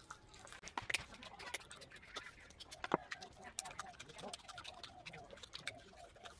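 Close-up mouth sounds of eating a grilled chicken drumstick: biting, chewing and wet lip-smacking clicks, the sharpest about one and three seconds in. From about halfway on, a quick run of short pitched notes sounds in the background.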